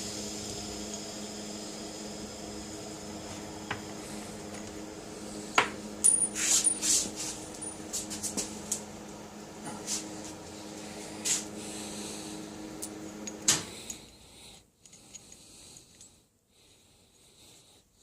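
Metal parts clinking and tapping against each other over a steady machine hum; the hum cuts off about fourteen seconds in, leaving near silence.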